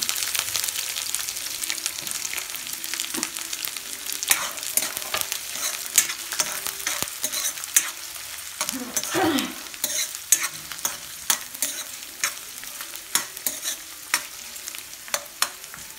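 Sliced onions sizzling in hot oil in a kadhai, with a steel ladle scraping and clicking against the pan as they are stirred. The sizzle is loudest at the start, just after the onions go in, and settles down after a few seconds.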